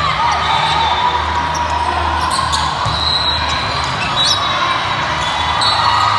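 Indoor volleyball rally: sneakers squeak on the hardwood court and the ball is struck sharply a few times, over the steady low hum of a large sports hall.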